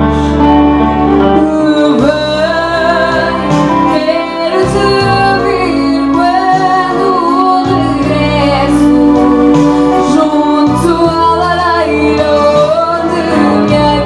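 A female voice singing a slow song over steady instrumental accompaniment. The voice comes in about two seconds in.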